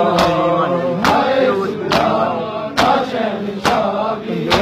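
Matam: a crowd of mourners beating their chests in unison, a sharp slap a little under every second, while male voices chant a nauha lament together.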